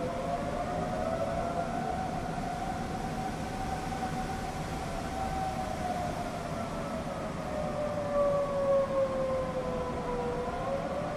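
Several outdoor tornado warning sirens wailing at once, their pitches slowly rising and falling out of step with one another, over a steady low background rumble. The sirens are sounding a tornado warning.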